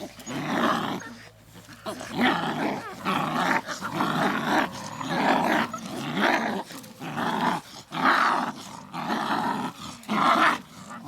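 Young puppies growling, a rough growl about every second, over and over.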